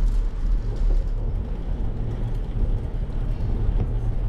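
Wind buffeting the microphone of a GoPro on a moving bicycle: a steady low rumble whose loudness keeps rising and falling unevenly.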